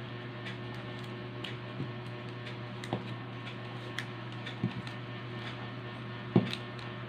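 Electrical tape being wrapped around a coaxial cable splice: scattered faint crackles and small clicks from the tape and handling, with a few louder knocks, over a steady low electrical hum.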